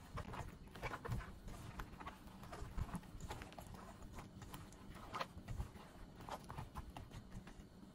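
Gloved hand tossing sliced eggplant in thick batter in a stainless steel bowl: irregular wet squelches and slaps, several a second.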